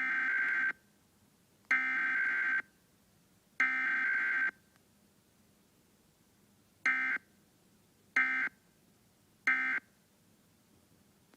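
Emergency Alert System SAME data bursts for a Required Weekly Test: three longer bursts of buzzing digital data tone (the header), then three short bursts (the end-of-message code), with no attention tone in between.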